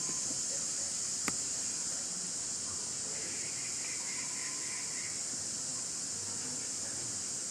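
Steady high-pitched drone of an insect chorus, with one sharp click a little over a second in.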